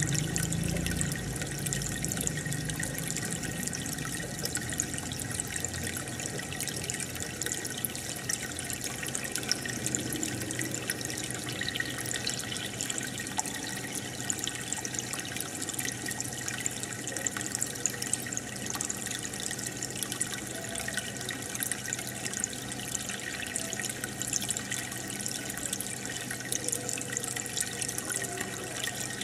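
Aquarium water bubbling steadily from an air stone and filter, full of small popping ticks from bursting bubbles, over a faint low hum.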